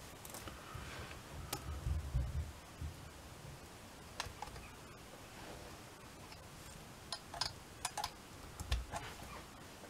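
Light, scattered clicks and taps of small brass clock parts as a torsion clock movement is handled and assembled, with several clicks close together near the end and a few soft handling bumps.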